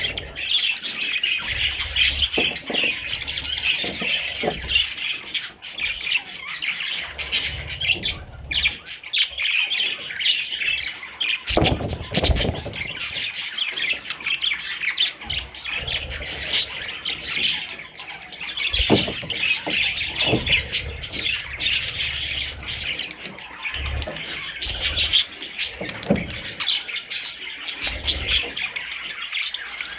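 Budgerigars chattering and chirping together in a continuous, dense warble of short notes, with the odd squawk. A few dull thumps break in now and then.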